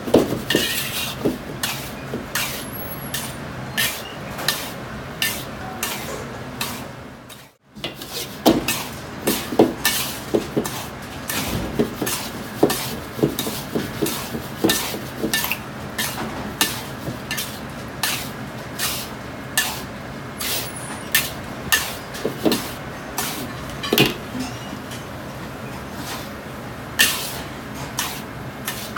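Metal ladle and wok spatula stirring and scraping salt and spices around a dry iron wok, a run of scrapes and clinks about once or twice a second over a steady low hum. The sound drops out briefly about seven seconds in.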